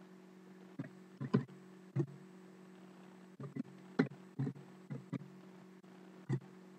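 About a dozen sharp, irregular clicks and taps over a steady low electrical hum.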